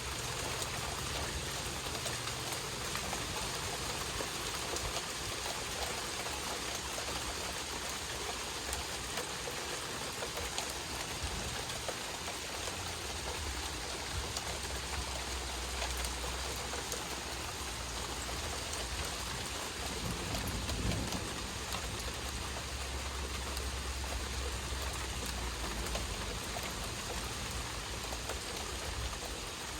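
Steady rain falling during a thunderstorm, an even hiss with a low rumble that builds partway through and fades near the end.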